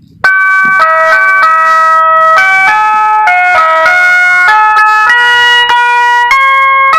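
Electronic vehicle horn playing a melody: loud held tones, several pitches sounding together, stepping to new notes about twice a second.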